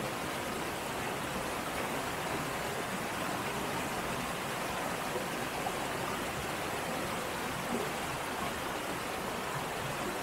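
A creek pouring over a small rock cascade: a steady, unbroken rush of water.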